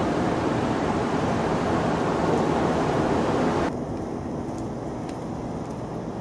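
Steady rushing outdoor noise, like wind on the microphone or distant traffic, which drops abruptly a little past halfway to a quieter, steady background hiss with a few faint ticks.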